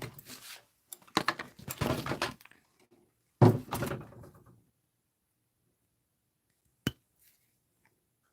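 Handling noises as objects are moved and set down: a few knocks and clatters over the first two and a half seconds, a heavier thunk about three and a half seconds in, then one sharp click near seven seconds.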